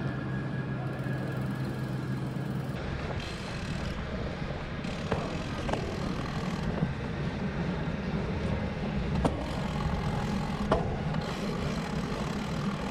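Ridley Noah Disc road bike rolling along a smooth indoor track: a steady low rumble of tyres and drivetrain, with four sharp clicks in the second half.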